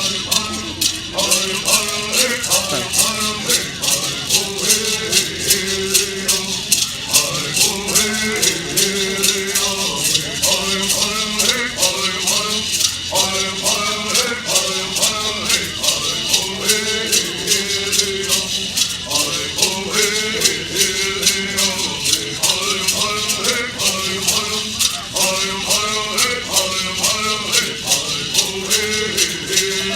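Southern California Native American bird songs: singers chanting together over gourd rattles shaken in a steady, even beat.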